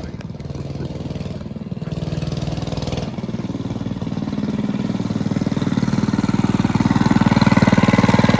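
Small single-cylinder engine of a 105cc mini bike running, a steady rapid firing pulse that grows gradually louder over the seconds.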